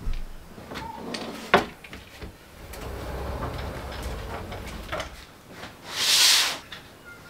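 Wardrobe drawers pushed shut, a thump and then a sharp click. A sliding wardrobe door then rolls along its track with a low rumble and knocks to a stop, followed near the end by a brief swishing hiss.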